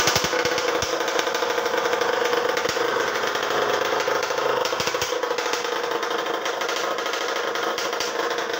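Yamaha RXZ single-cylinder two-stroke engine running steadily through a D2S Pro Race 'senapang' straight-style expansion exhaust pipe, the note holding a little stronger in the middle and easing slightly near the end.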